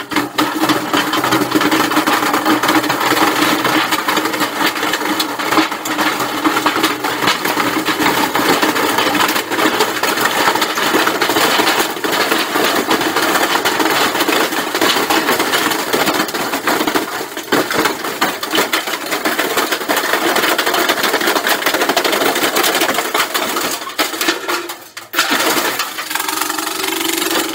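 Washing machine running, with a loud, continuous rattling and clattering of many small clicks. The noise dips briefly near the end.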